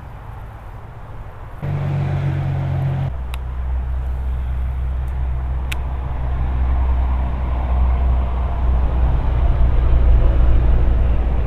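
A motor engine running with a steady low hum that starts about two seconds in, drops in pitch about a second later, and slowly grows louder.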